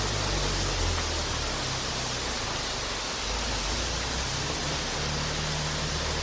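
Steady hiss of water spraying and falling from rain-dance shower nozzles.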